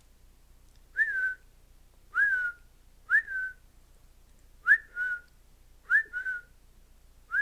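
A series of six short whistled notes roughly a second apart, each sliding quickly up and then holding a steady pitch.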